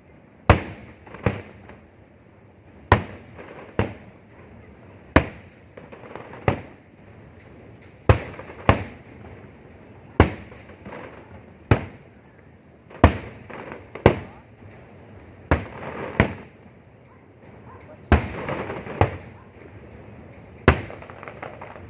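Fireworks going off: a string of sharp, loud bangs at irregular spacing, roughly one a second, each trailing off briefly, with crackling between them that thickens about three-quarters of the way through.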